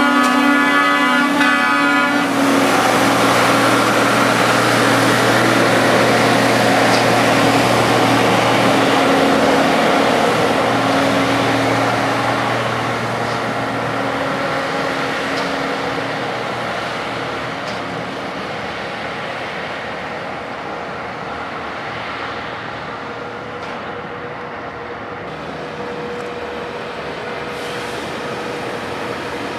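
A horn held for about two seconds, cutting off abruptly, then the diesel engines of track maintenance machines running past close by. Their noise slowly fades as they move off.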